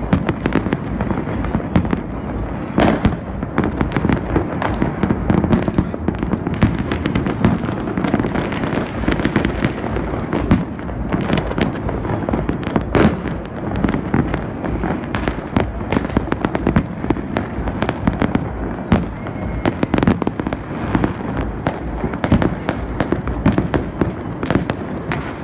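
Fireworks going off across a city: a dense, unbroken barrage of many overlapping bangs and crackles over a low rumble, with a few louder bangs standing out.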